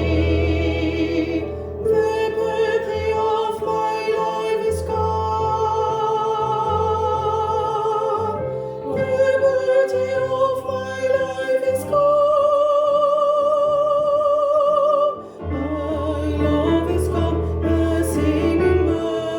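Choir singing a slow passage of long held notes with vibrato, moving to a new chord every few seconds over sustained low notes, with a brief break about three quarters of the way through.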